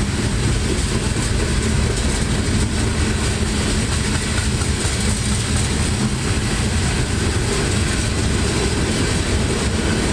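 Loaded coal hopper cars of a freight train rolling past, with a steady noise of steel wheels running on the rails.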